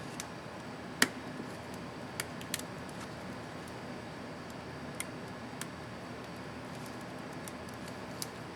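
Scattered small, sharp plastic clicks, one much louder about a second in, over a steady background hiss: a laptop keycap and its retainer clips being handled and snapped into place on the keyboard.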